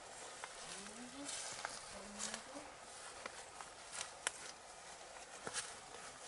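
Faint outdoor ambience with scattered sharp clicks and crackles, the sharpest a little after four seconds, and a brief faint low murmur in the first couple of seconds.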